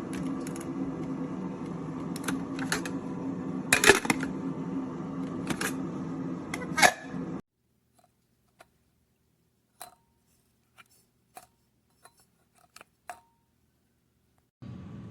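Electric spice grinder's motor running steadily, with several sharp clicks, cutting off abruptly about seven seconds in; a few faint light clicks follow, and a steady hum starts again near the end.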